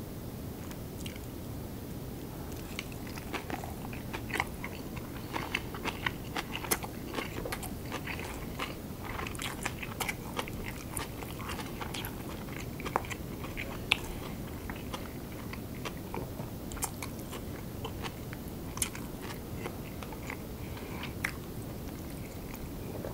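Close-miked chewing and biting of curry rice and kimchi: wet mouth sounds with crisp crunches and clicks, thickest in the first half and sparser toward the end, over a steady low hiss.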